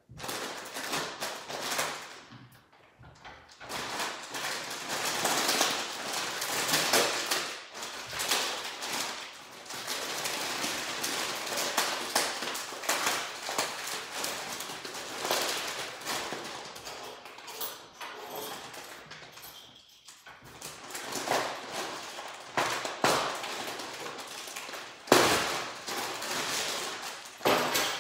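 Foil snack-chip bags crinkling and rustling as they are handled and lifted out of a cardboard box, with a few louder sharp crackles and knocks.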